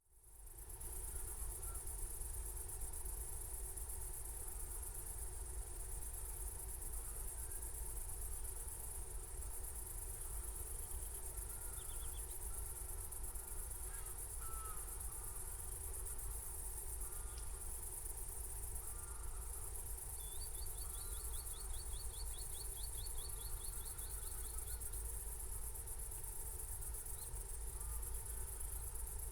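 Night chorus of crickets: a steady, high-pitched trilling that fades in over the first second, over a low background rumble. Short, softer calls come every second or two, and about twenty seconds in a quick run of clicks, about five a second, goes on for some five seconds.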